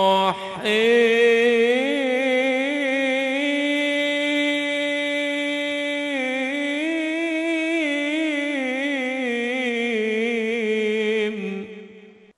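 A man's solo voice chanting unaccompanied into a microphone: one long held phrase that wavers in ornamented turns, after a quick breath near the start, and fades out near the end.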